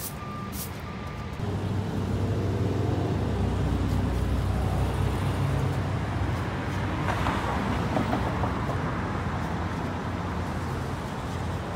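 A straw broom swishes once or twice on concrete. About a second and a half in, city traffic takes over: a heavy vehicle's engine runs close by with a steady low hum.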